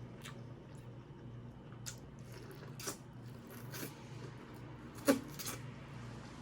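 Close-up wet eating sounds: a few short mouth smacks and squishes about a second apart, the sharpest about five seconds in.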